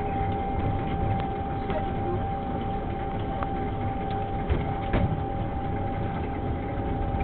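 Small family roller coaster car running along its steel tube track: a steady rumble with a constant hum, and two short knocks a little past halfway.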